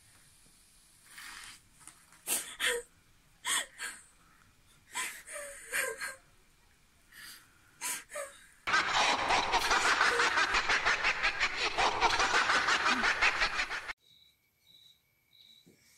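A frightened young woman gasping and whimpering in short breaths. About halfway through, a loud, rough, rapidly fluttering noise runs for about five seconds and cuts off suddenly. Faint short high beeps follow, about twice a second.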